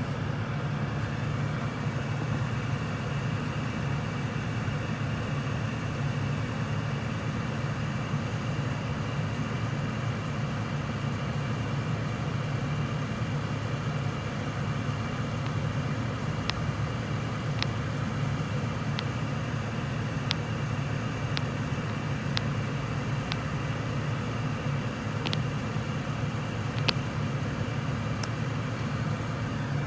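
Car engine idling with the heater running on full, a steady low hum. In the second half a series of light, sharp clicks comes roughly once a second.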